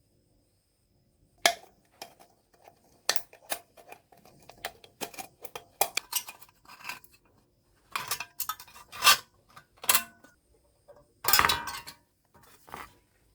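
Irregular light clicks, taps and clinks of small hard objects being handled and set down on a work surface, with a short rustle or scrape near the end.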